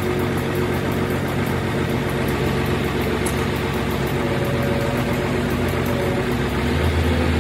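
A large diesel engine idling steadily. Near the end its low hum grows stronger.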